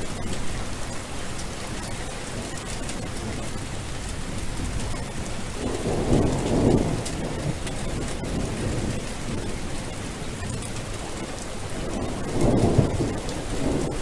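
Steady rain hiss with rolling thunder, swelling into a low rumble twice, about six seconds in and again near the end.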